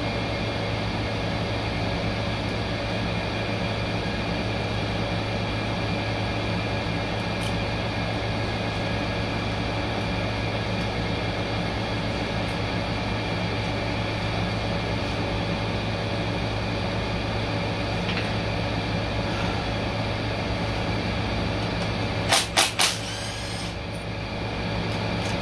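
Steady machine hum with no speech; near the end, three short whirring bursts from a cordless power tool loosening the valve-body bolts on a Ford 10R80 ten-speed automatic transmission.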